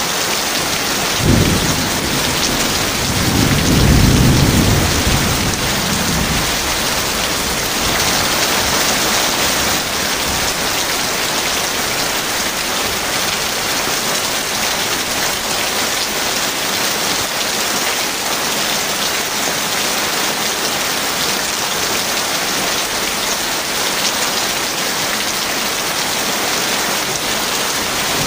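Heavy rain falling steadily. A sharp crack of thunder comes about a second in, followed a couple of seconds later by a longer rolling rumble of thunder.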